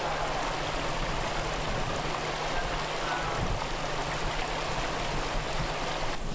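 Steady rushing of flowing water, with a faint low hum underneath.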